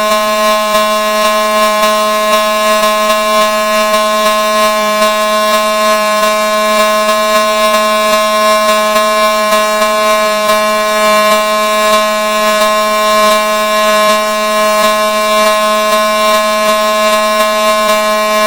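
Emergency-vehicle siren in its horn setting: one loud, steady tone that holds the same pitch without rising, falling or breaking.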